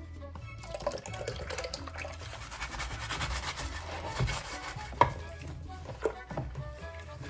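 Rubbing and scraping from hand cleaning or abrading of a lantern part, with small clicks and one sharp knock about five seconds in, over soft background music.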